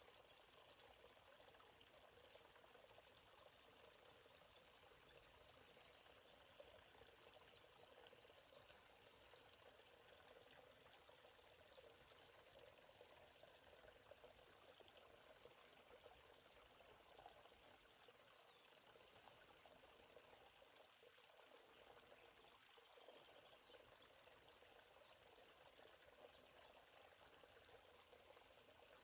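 Steady high-pitched chorus of insects trilling without pause, over the faint, even rush of a forest stream.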